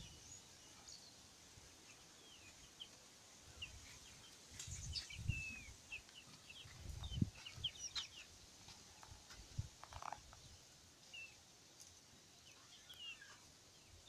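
Birds chirping faintly, many short calls and little pitch glides, with a cluck-like call about ten seconds in; a few soft low thumps come and go.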